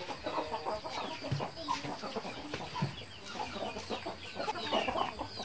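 Chickens clucking, a scatter of short, irregular calls.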